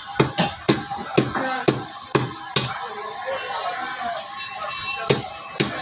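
Katla fish being cut on an upright boti blade: a series of sharp cracks as the blade bites through the flesh and bone, several close together in the first three seconds and two more near the end.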